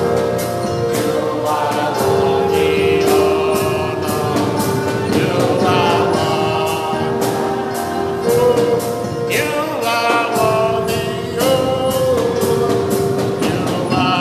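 Gospel music: singing voices over a long held note and a steady beat.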